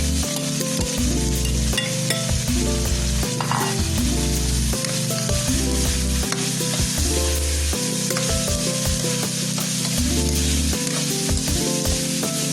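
Pieces of pre-boiled pork sizzling as they fry in hot cooking oil in a pan, being stirred, with background music playing steadily underneath.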